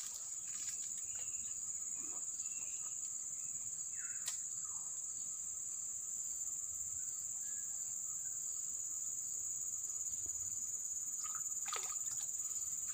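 Steady, high-pitched drone of insects, with a single sharp click about four seconds in.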